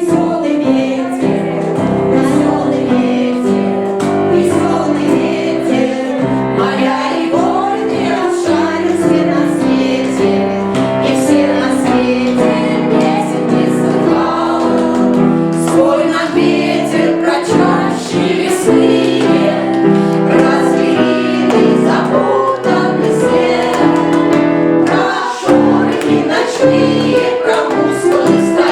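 Youth choir singing in unison with grand piano accompaniment, steady and loud throughout.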